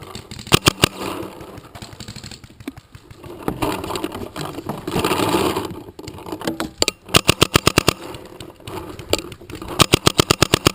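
Paintball marker firing rapid strings of shots: a few shots near the start, then two quick bursts of about eight to ten shots each in the second half, about ten a second. A rushing noise rises and falls around the middle.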